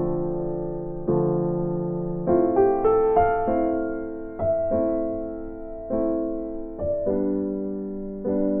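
Background music: keyboard chords struck about once a second, each left to ring and fade before the next.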